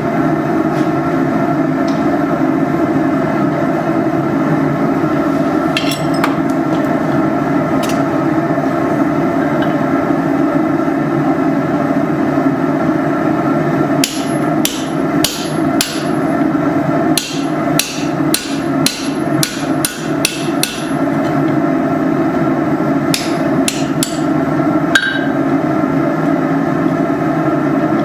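Hand hammer striking hot iron railroad spikes on an anvil during forging: a couple of single blows early, then quick runs of ringing blows about halfway through and again near the end, over a steady droning background.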